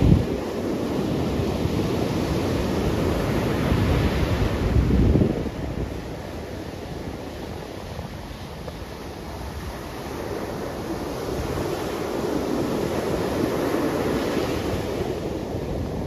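Ocean surf breaking and washing up a sandy beach, a steady rushing that swells and fades with the waves. Wind rumbles on the microphone for the first five seconds, then drops away, and the surf builds again about twelve seconds in.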